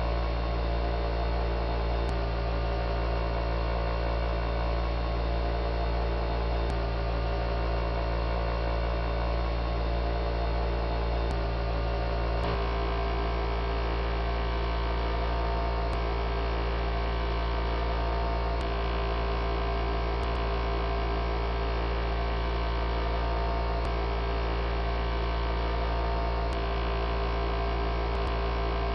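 A small electric motor spinning a test wheel gives a steady electrical hum with many steady tones, deepest and strongest at the bottom, and a few faint scattered ticks.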